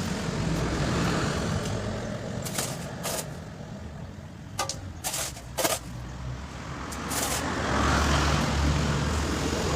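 Truck engine running steadily, with a few sharp clanks in the middle and the engine getting louder in the last couple of seconds.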